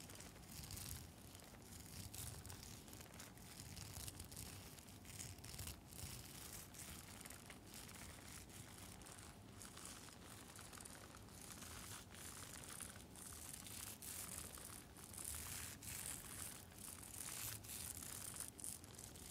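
Close-miked scratching and light tapping on a rhinestone-studded face mask: a steady, faint scratchy rustle broken by many small clicks.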